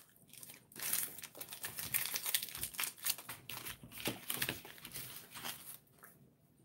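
Snack-stick packaging crinkling and rustling as it is handled, a quick run of crackles that starts just under a second in and dies away near the end.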